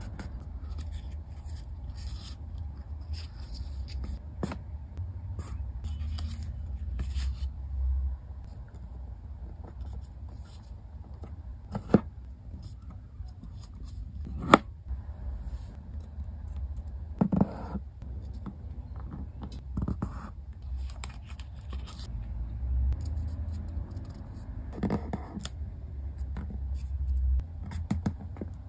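Origami paper being folded by hand: crisp rustles and scrapes as creases are pressed and smoothed with the fingers, with a few sharp paper snaps about 12, 14 and 17 seconds in.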